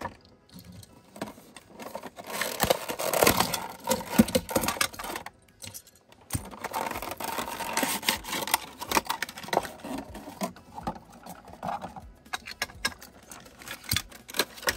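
Clear plastic blister pack being pried and torn off a diecast toy car's cardboard backing card and handled: crinkling, crackling plastic with many small clicks. It is loudest in two stretches, from about two seconds in and again from about six to ten seconds, with a short lull between.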